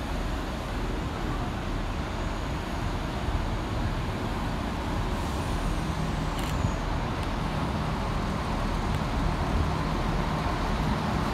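Chiltern Railways Class 168 diesel multiple unit drawing into the platform, its diesel engines and wheels running in a steady rumble that grows slightly louder as it approaches.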